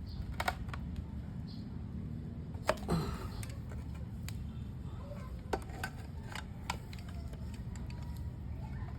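Scattered sharp metallic clicks and taps of hand tools on a differential's adjusters and housing as the ring-and-pinion clearance is set, over a steady low hum.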